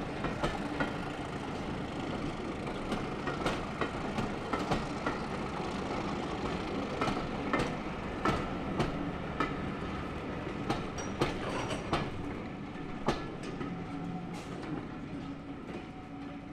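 Railway passenger coaches rolling slowly past, their wheels clacking over rail joints in a loose, repeated rhythm over a steady rumble. The sound fades near the end as the last coach goes by.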